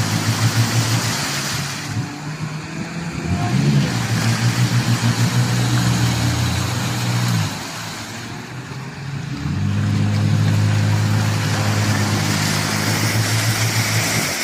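Off-road 4x4's engine running and revving, rising in pitch about three and a half seconds in. It drops away around seven and a half seconds and picks up again strongly at about nine and a half seconds.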